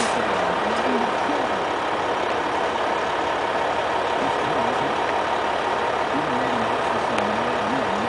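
A vehicle engine idling steadily, with faint distant voices coming and going.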